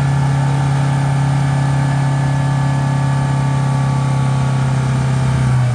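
Off-road 4x4's engine running at steady revs, its pitch sinking slightly near the end.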